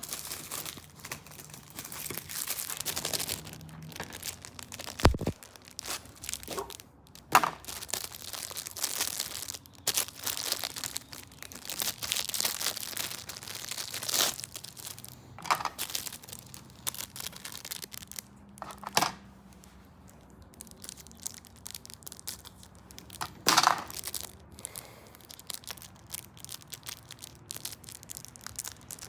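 Hands fitting a cover plate over a newly installed wall outlet: stretches of rustling and crinkling handling noise, with about five sharp clicks and knocks.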